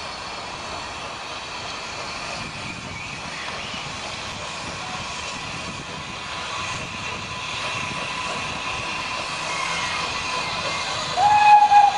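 Small saddle-tank steam locomotive hauling coaches towards the listener, its working a steady hiss and rumble that grows gradually louder as it approaches. About a second before the end comes one short, loud blast on the steam whistle.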